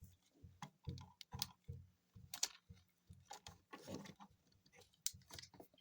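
Plastic parts of a Transformers figure clicking and tapping as they are handled and moved into place, in irregular, faint clicks with a brief rustle about four seconds in.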